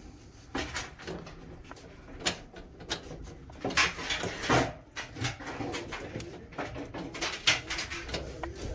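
Irregular scraping and rubbing handling sounds with a few light knocks, from hands and tools working on a clothes dryer's parts while grease is applied.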